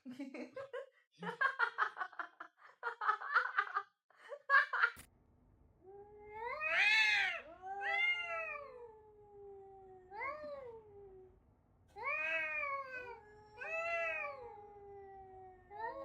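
Domestic cat giving a series of long, drawn-out meows that rise and fall in pitch, about six of them from around six seconds in. Before that comes a quick run of short, choppy calls.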